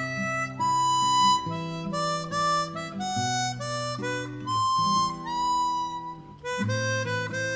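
Background music: a harmonica playing a slow melody of held notes.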